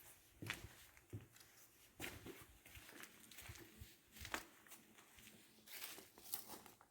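Faint footsteps crunching irregularly over debris.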